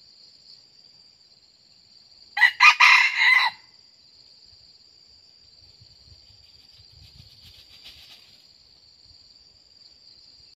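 A red junglefowl cock crows once, a short loud crow lasting about a second. A steady high-pitched insect drone runs underneath.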